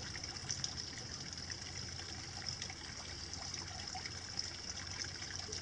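Steady trickle of running water, with a few faint clicks of soil being pressed by hand into a polybag.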